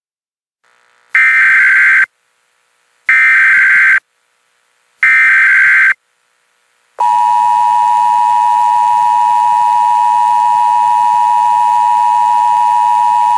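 Emergency Alert System tones: three one-second bursts of the SAME digital header, about a second apart, then about seven seconds in the steady two-tone EAS attention signal starts and holds.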